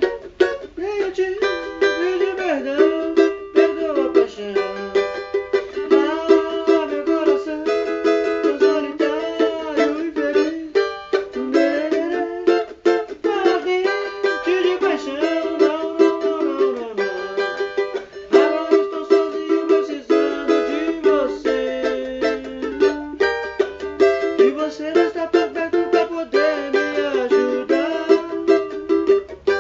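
Cavaquinho played solo, a run of quick plucked notes and strums picking out a melody.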